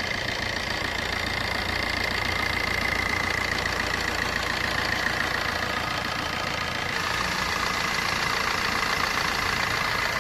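Fiat Punto's 1.3 Multijet diesel engine idling steadily. Its timing chain and idler bearing are newly replaced, and the chain noise is gone.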